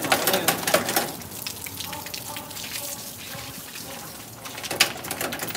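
Water from a garden hose spraying onto a dog and splashing on a concrete floor, rinsing shampoo out of the coat. It splashes loudest in the first second and again near the end.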